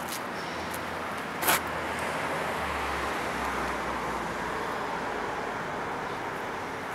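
Steady street traffic noise, with a low rumble swelling in the middle and one sharp click about a second and a half in.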